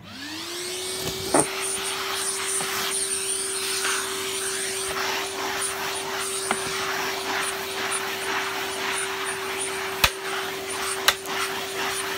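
A vacuum cleaner switched on, its motor spinning up within about a second to a steady whine over rushing air. There is a sharp knock just after it reaches speed and two more near the end.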